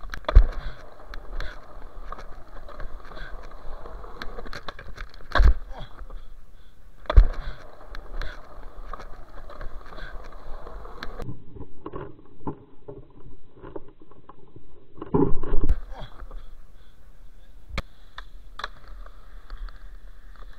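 Skateboard wheels rolling over concrete with steady rolling noise, broken by several sharp clacks of the board striking the ground, the loudest about five and seven seconds in.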